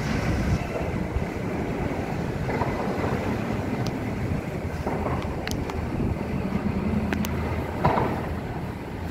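Norfolk Southern double-stack intermodal well cars rolling past at close range: a steady rumble of steel wheels on rail, with a few brief high squeaks partway through.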